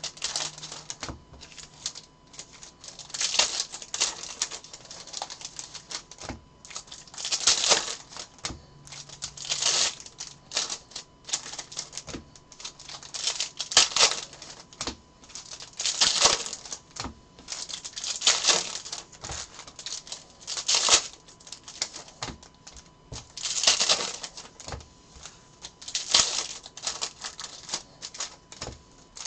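Foil trading-card pack wrappers crinkling and tearing as the packs are opened, with cards clicking and sliding against each other as they are handled. The crinkling comes in bursts every second or two.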